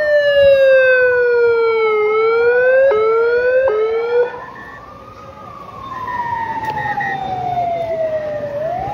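Two sirens wailing. A loud, close one glides down and then back up, jumps in pitch a few times and cuts off about four seconds in. A fainter, more distant one keeps sweeping slowly up and down.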